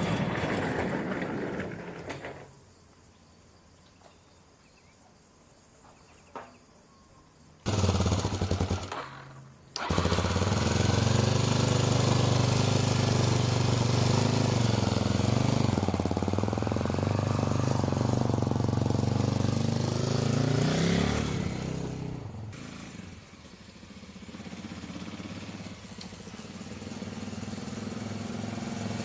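Honda XL250 Degree single-cylinder motorcycle engine starting: a short first burst that dies, then it catches and runs steadily. Near the end it rises briefly in pitch, falls away quieter and slowly builds again.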